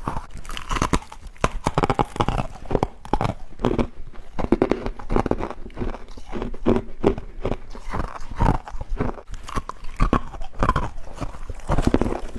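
Close-up crunching and chewing of freezer frost, with dense, irregular crackles that keep going throughout.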